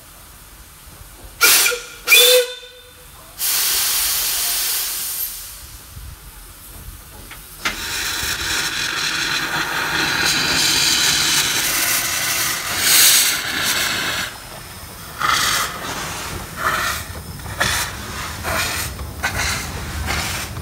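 Peckett saddle-tank steam locomotive giving two short whistle blasts, then a brief burst of steam hiss. About a third of the way in, its open cylinder drain cocks start blowing a loud steady hiss as it moves off, and in the second half uneven exhaust chuffs break through the hiss.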